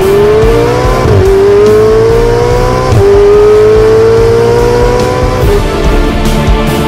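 Ferrari 488 GTB's twin-turbo V8 accelerating hard through the gears. The engine note climbs steadily in pitch, drops sharply at upshifts about one and three seconds in, and stops about five and a half seconds in, with background music underneath and continuing after.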